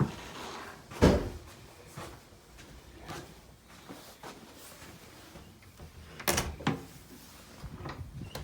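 Irregular knocks and thumps, the loudest about a second in and another cluster around six seconds in.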